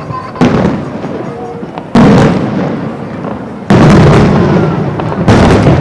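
Aerial firework shells bursting: four loud booms, each followed by a rolling rumble that dies away before the next.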